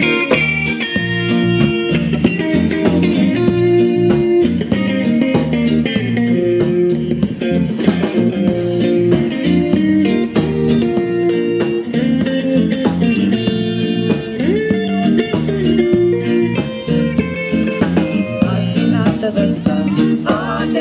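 Live band playing a song, with guitar to the fore and bass underneath.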